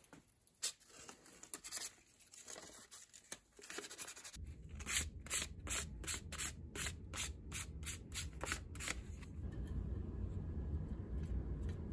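A shellacked wooden hand-plane knob rubbed back and forth on sandpaper laid on a flat stone slab, sanding the finish smooth between coats. Light handling clicks come first, then a run of even strokes, about two to three a second, that stops before the end.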